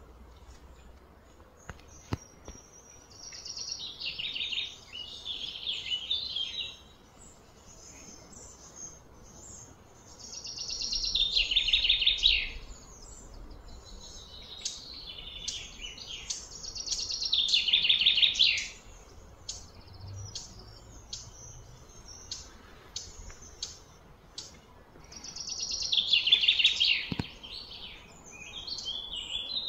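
Birds calling in repeated high chirping phrases, each lasting a few seconds and coming round about every six to eight seconds.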